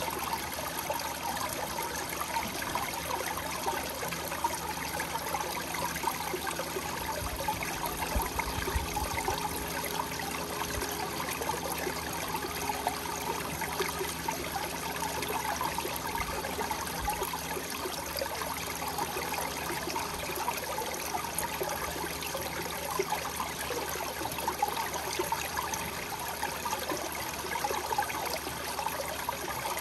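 Water trickling steadily down a ribbed stone water wall and splashing onto pebbles at its foot.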